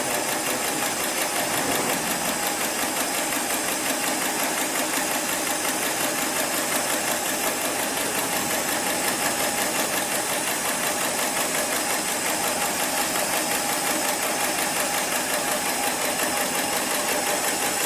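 Heavy-duty programmable pattern sewing machine for polyester and nylon slings running steadily, with a fast, even stitching rhythm.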